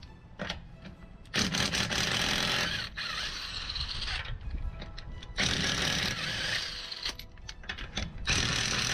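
Impact wrench spinning lug nuts off a car wheel in three rattling bursts, each one to three seconds long, with short pauses between.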